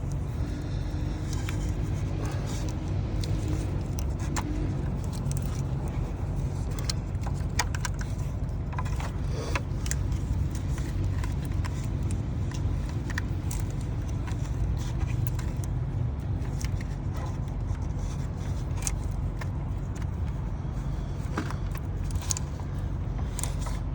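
Scattered metallic clinks and scrapes of tools and engine parts being handled and refitted, over a steady low rumble.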